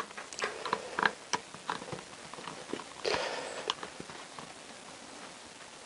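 Socket ratchet clicking in short irregular runs as it is worked on the Allen bolt that holds a motorcycle fork's damping rod, tightening it up. There is a brief rattle about three seconds in.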